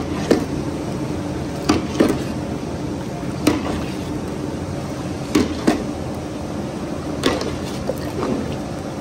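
A metal ladle stirring thick moong dal in a large steel pot, knocking against the pot several times at irregular intervals, over a steady background hiss.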